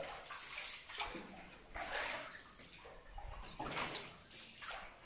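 Wooden oars of a hand-rowed boat splashing and swishing through river water in repeated strokes, about one a second, inside a limestone cave.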